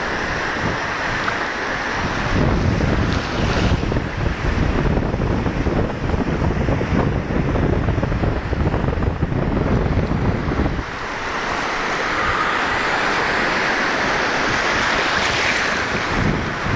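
Small sea waves washing and breaking around a microphone held just above the water, with wind buffeting the microphone. The low wind rumble is heaviest from about two seconds in until about eleven seconds, after which the hiss of the surf is more to the fore.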